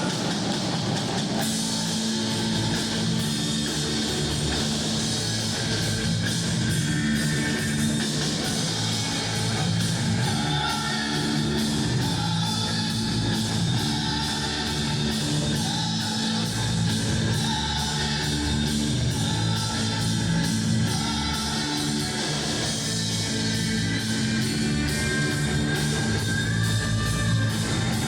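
A live rock band playing, with drum kit, bass and electric guitars at a steady loud level.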